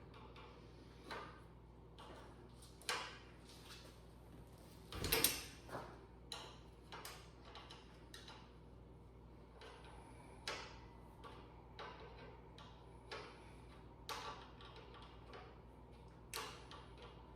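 A wrench working a fuel-line fitting on a fuel pump: scattered faint metallic clicks and taps, with one louder knock about five seconds in.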